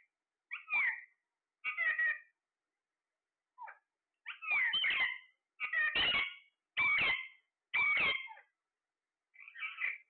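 Caged Alexandrine parakeets calling, about eight separate calls in a row, the ones in the middle longest and loudest.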